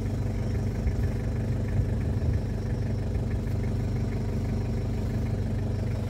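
An engine idling steadily at an even pitch.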